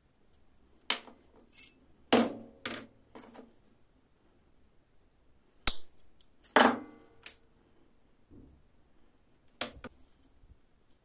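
Metal hand tools and copper wire clicking and knocking at a jeweller's bench: about eight sharp, irregularly spaced knocks, one of them followed by a short metallic ring.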